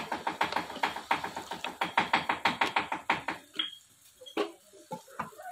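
Spatula rapidly scraping and knocking in a granite-coated frying pan while stir-frying chicken livers and baby corn, about six strokes a second. The strokes stop about three and a half seconds in, leaving a few scattered knocks.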